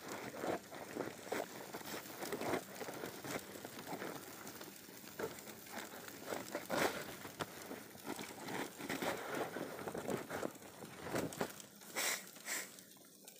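Irregular rustling and crinkling of a bag and mesh net being handled among leaves close to the microphone, with two sharper crackles near the end.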